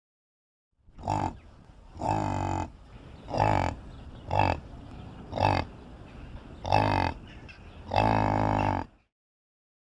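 Yak calling: seven low, pitched calls about a second apart, the second and the last drawn out longer than the rest.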